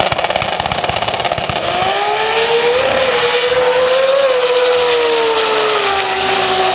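Turbocharged Pro Compact drag car making a full-throttle pass. The engine gives a rapid crackle for the first second and a half, then settles into a steady high note that rises and dips as the car runs down the track. The pitch falls about six seconds in as the run ends.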